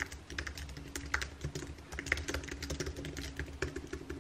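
Typing on a computer keyboard: quick, irregular key clicks, over a faint steady hum.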